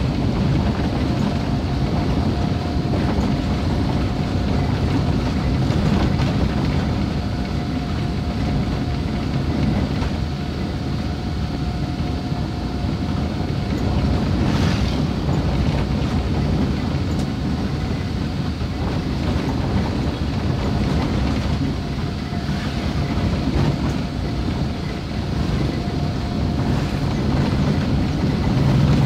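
Car driving at a steady pace, heard from inside the cabin: continuous engine and tyre road noise with a faint steady whine running through it.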